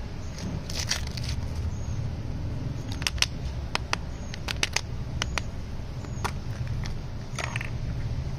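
Hands handling candy and a plastic toy egg: a short crinkle of a plastic wrapper about a second in, a run of sharp plastic clicks and snaps from about three to five seconds in as the egg is worked open, and another crinkle near the end, over a steady low rumble.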